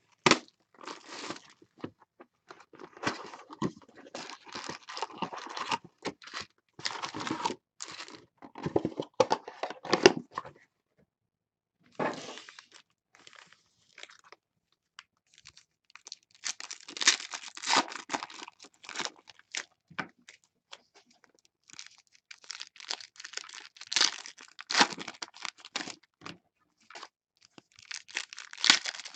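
Trading card box and foil card packs being handled: irregular crinkling, rustling and tearing, with a short pause about a third of the way in. Near the end a foil pack is torn open.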